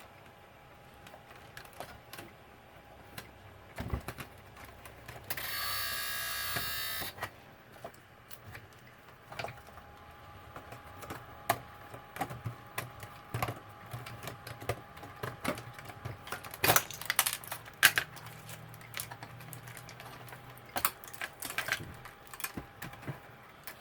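Small plastic and metal parts of a label machine clicking and knocking as it is taken apart by hand, in irregular clicks that are loudest about two-thirds of the way through. About five seconds in, a steady buzz runs for about two seconds.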